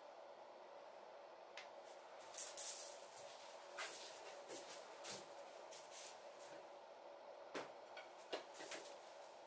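Scattered short scraping and brushing strokes of painting tools on canvas, with a louder hissing stroke about two and a half seconds in, over a steady low room hum.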